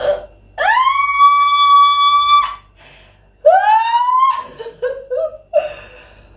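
A woman's high-pitched squeals of shock as a very cold, wet cabbage leaf is pressed against her chest. The first rises and is held for about two seconds, a second rising squeal comes about three seconds in, and then a few short broken vocal sounds follow.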